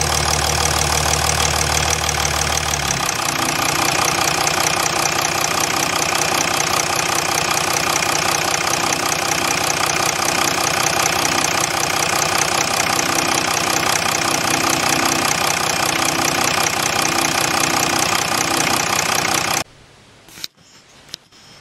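A Jeep Grand Cherokee CRD's 3.0-litre V6 common-rail diesel idling steadily, heard up close in the engine bay. It shuts off suddenly near the end, leaving a few faint clicks.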